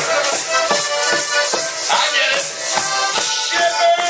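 Live harmonica playing, with held reedy notes, over a rattling percussion beat. The player takes it for the wrong harmonica.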